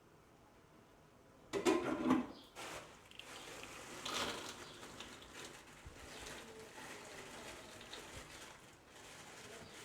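Eggs being cracked on a bowl and separated by hand. There are a few sharp cracks and knocks about a second and a half in, then softer, irregular handling sounds of shells and egg.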